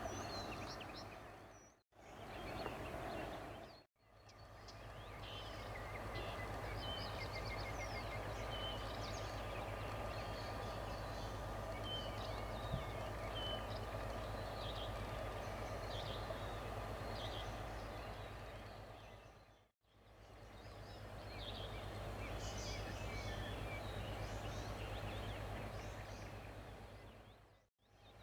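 Songbirds chirping and trilling over a steady low hum. The sound dips out and comes back in several times.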